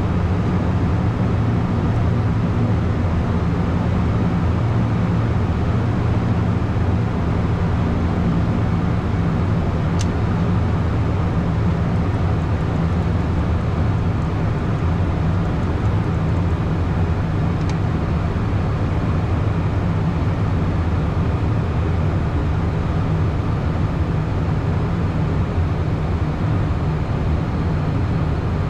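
Steady cockpit noise of a Beechcraft Premier 1A twin-turbofan business jet on final approach: a constant low hum of engines and airflow. A short click sounds about ten seconds in, and a fainter one a few seconds later.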